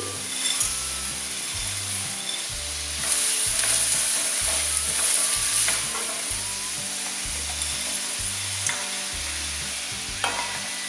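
Frozen peas sizzling in hot oil and onion in a stainless steel pan as they are poured in and stirred with a wooden spoon, with a few light spoon clicks against the pan. The sizzle swells for a few seconds from about three seconds in.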